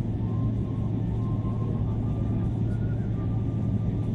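Steady low cabin rumble of a Boeing 777-300ER taxiing, heard from inside the passenger cabin, its engines at taxi power. A faint thin whine sits above the rumble and steps up in pitch.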